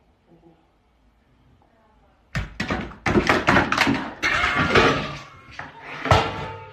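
Two cats scuffling and pouncing on a bathroom floor. After a couple of quiet seconds comes a rapid run of thumps and knocks lasting about four seconds.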